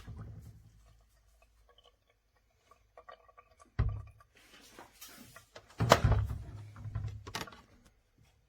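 Handling noise from a Theo Klein Bosch toy washing machine: a few plastic knocks and bumps with some rubbing, the loudest knock about six seconds in.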